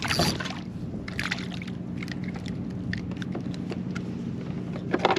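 Steady low hum of a fishing kayak's electric motor, with water sloshing and short clicks and knocks around the hull.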